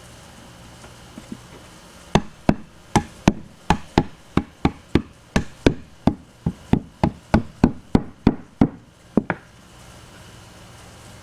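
Rubber mallet tapping pre-glued wooden dowels into their holes in the wooden rack: a quick run of about twenty knocks, roughly three a second, starting about two seconds in and stopping about nine seconds in.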